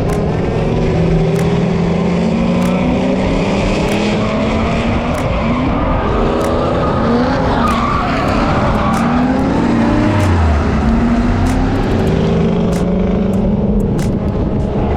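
Drift cars on track: engines revving up and down through the drift with tyre squeal, several engine notes rising and falling at once.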